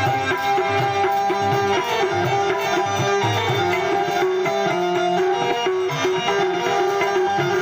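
Adivasi rodali dance music: a drum beat under a steady melody, playing continuously at a loud level.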